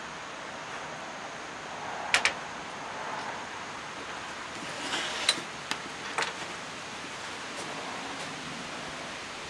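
Steady background hiss with a few sharp clicks: a quick double click about two seconds in, then three more single clicks between five and six and a half seconds in.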